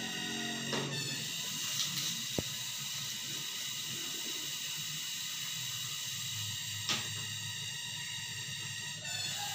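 Steady hiss with faint high-pitched steady tones in it, broken by a few soft clicks and one sharp tick.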